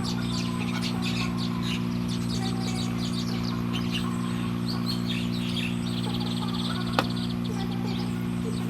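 Small birds chirping in quick, short notes over a steady low hum, with one sharp click about seven seconds in.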